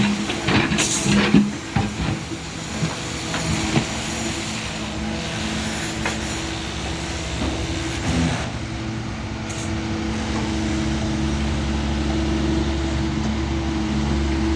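Doosan DX140 wheel excavator's diesel engine and hydraulics running steadily, with a cluster of sharp clanks and knocks in the first few seconds and another about eight seconds in. The engine sound grows heavier and a little louder from about ten to eleven seconds in, as under load.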